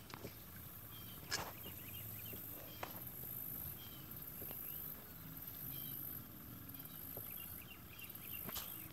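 Outdoor insect chorus: a high, steady shrill that swells and drops a few times, with scattered short high chirps and a couple of soft clicks.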